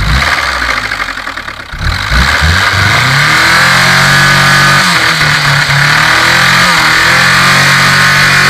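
Car engine revved hard a few times, then held at high rpm for several seconds, the engine being pushed to its limit.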